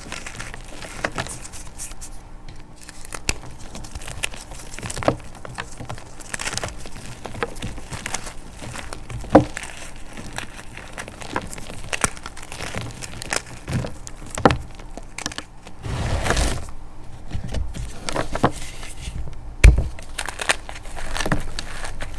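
Crunchy chalk being crushed, a run of small crackles and crunches with sharp snaps of pieces breaking. The loudest snaps come about nine seconds in and again near twenty, with a thicker burst of crunching around sixteen seconds.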